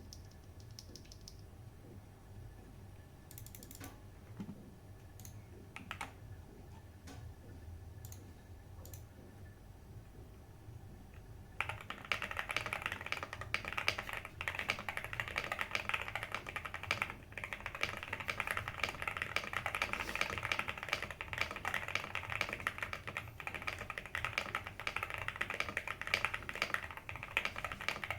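Typing on a Qwertykeys QK65 gasket-mount keyboard with lubed JWK 02 linear switches, aluminium plate and PBT keycaps. A few scattered key clicks, then steady fast typing starts about twelve seconds in.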